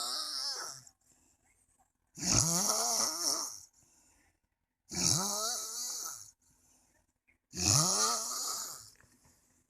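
A sleeping man snoring loudly and regularly: the end of one snore right at the start, then three more, each about a second and a half long and coming about every two and a half seconds, with a throaty tone under a hissing breath.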